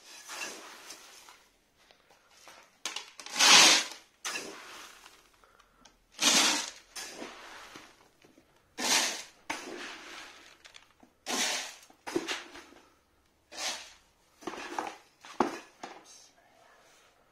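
Dry grain scooped from a plastic bucket and poured into a plastic bottle hopper: a rattling pour roughly every two to three seconds, with short quiet gaps between scoops.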